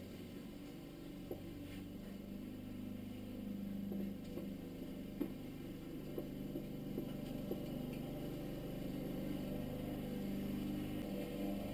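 Small clicks and taps of a dirt bike air filter being pushed back into its airbox and seated by hand, scattered through the middle of the stretch, over a steady low hum.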